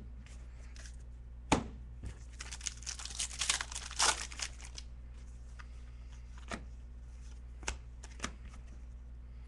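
Hands handling basketball trading cards: a sharp snap about a second and a half in, then a couple of seconds of dense rustling as the cards are worked through, and a few light clicks near the end.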